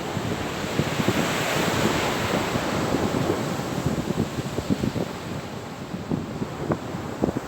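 Sea waves breaking and washing on the shore, the wash swelling about a second in and easing off after, with wind buffeting the microphone in short gusts.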